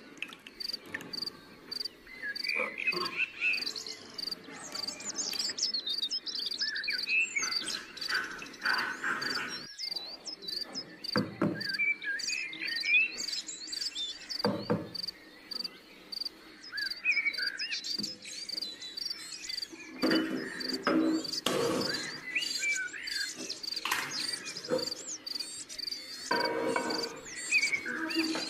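A cricket chirps steadily in an even high-pitched pulse, with birds chirping at intervals and a few short knocks and clatters of kitchen handling.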